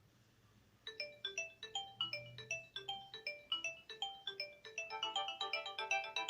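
Nokia 2310 phone ringtone: a fast electronic melody of short notes starting about a second in, growing fuller near the end as more notes are layered together.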